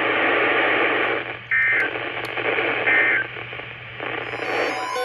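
Hiss and static of a radio broadcast over a steady low hum, broken twice by short warbling two-tone data bursts about a second and a half apart: the digital EAS code that closes an emergency alert.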